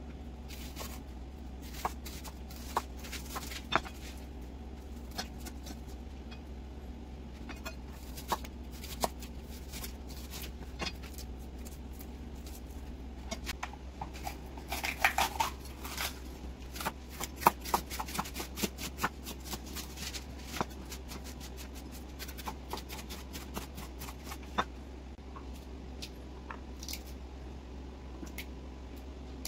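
Light clicks and taps of vegetables being handled and set down on a wooden cutting board and in a ceramic baking dish, over a steady low hum. About halfway through comes a denser run of crisp snaps and crackles as a bell pepper is broken apart by hand.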